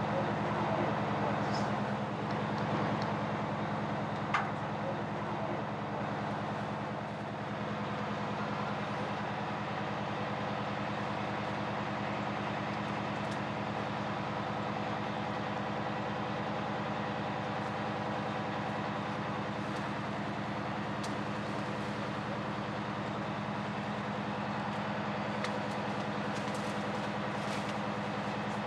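Fire truck's engine running steadily to power its raised aerial ladder, a constant low drone, with a few faint clicks.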